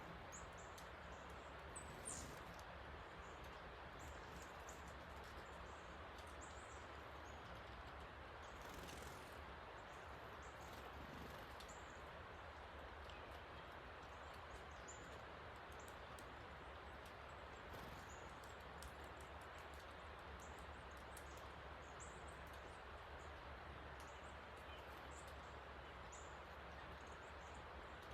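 Steady rushing of a creek swollen by two inches of rain, with scattered brief high bird chirps on top.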